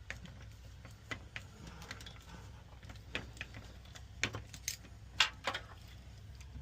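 Irregular small metallic clicks and taps as a tool is wedged under a stuck part of a Schlage smart lock to pry it loose, with a few sharper clicks about four to five and a half seconds in.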